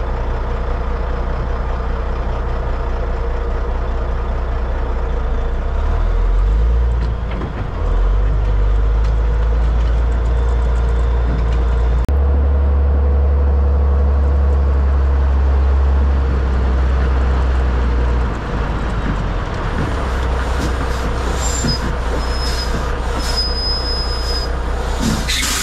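A heavy truck's diesel engine pulling away with an unladen converter dolly in tow. The low engine note swells and drops a few times as it drives.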